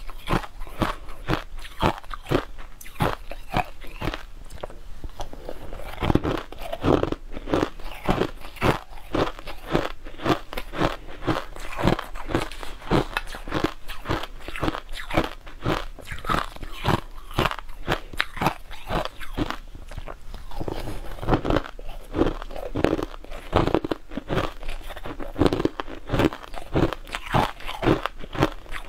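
A person chewing and crunching mouthfuls of crushed sweet ice: a steady run of quick, crisp crunches that goes on without a break.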